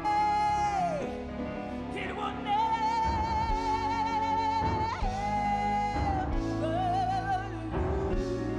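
A woman singing a slow gospel hymn in long held notes with vibrato, sliding between pitches, over a steady accompaniment.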